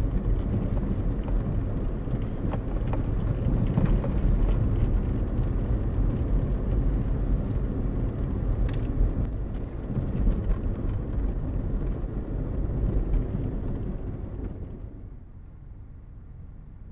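A vehicle driving fast on a bumpy dirt road, heard from inside the cabin. The engine and tyres rumble steadily, with scattered knocks and rattles from the rough road. About fifteen seconds in it drops to a much quieter hiss.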